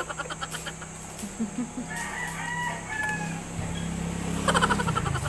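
A rooster crowing, with short harsh calls near the end and a thinner one in the middle, over a steady low engine hum.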